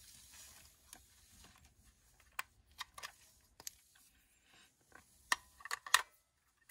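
Small sharp clicks and taps of plastic and metal as a Handspring Visor Neo PDA's battery door is opened and AAA batteries are handled and pressed into its compartment. The clicks are scattered at first, with a louder cluster near the end as a battery goes in.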